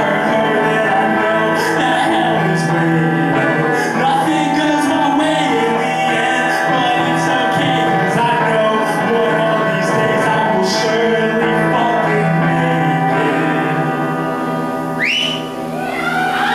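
Live song: a male singer over sustained electric guitar chords. Near the end the music dips and a sharp rising whistle sounds.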